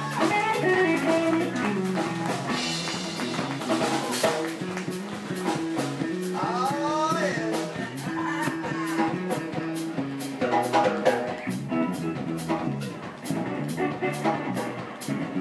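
Live blues band playing an instrumental stretch: electric guitar with bent notes over bass guitar and a drum kit keeping a steady cymbal beat.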